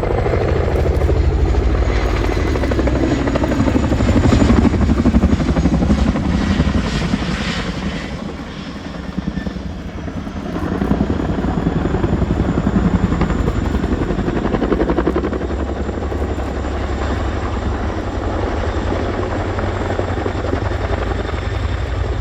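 Boeing Chinook HC.6 tandem-rotor helicopter manoeuvring, its rotors beating rapidly over the turbine engines. The sound eases off a little about eight seconds in, then builds again about two seconds later.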